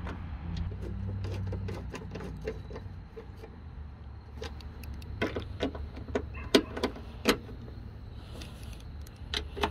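Ratchet and 5/16 socket clicking in short, irregular runs as a headlamp-assembly screw is driven in by hand, over a low steady hum. The sharpest clicks come in the middle and again near the end.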